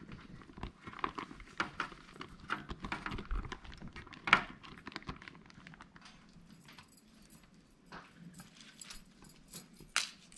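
Kitchen handling sounds from rice paper spring roll wrapping: light, irregular clicks and rustles of hands dipping a rice paper wrapper in water and laying it on a metal tray. There is a louder knock about four seconds in and a sharp click near the end.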